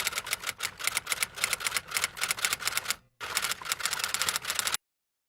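Rapid typewriter-style typing clicks, several a second, with a brief break about three seconds in, then cutting off abruptly near the end.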